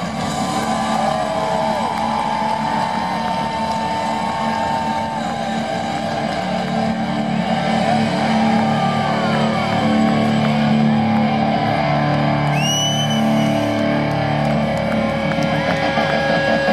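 Live hard rock band playing through a concert sound system, electric guitar prominent over a steady, loud band sound with sustained and gliding notes.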